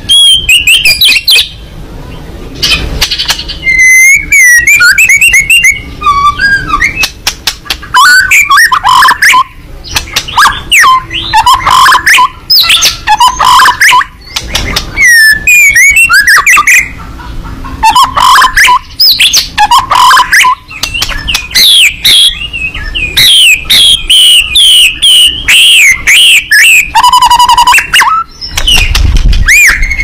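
White-rumped shama (murai batu) in full song: a loud, near-unbroken run of varied whistled phrases, with notes sliding up and down and quick trills, broken only by short pauses.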